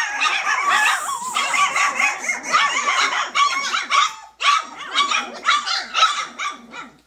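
Three-week-old Cane Corso puppies barking and yipping in high, shrill voices, the calls overlapping almost without a break, with a brief pause about four seconds in. The barking is the puppies' early protective instinct.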